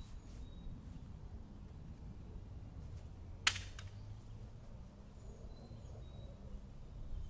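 A single sharp crack of an impact about three and a half seconds in, standing out from a quiet outdoor background with a few faint bird chirps.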